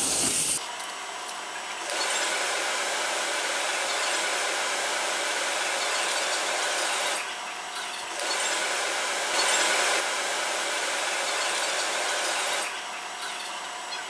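OMAX abrasive waterjet cutting through a Conair Ion Shine hair dryer's plastic housing: a steady, hissing rush of high-pressure water that dips in level a few times.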